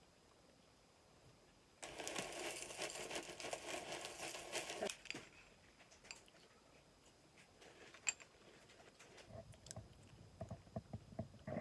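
A few seconds of dense rustling and scraping from objects being handled, then scattered small clicks, one sharp click, and a run of soft taps near the end.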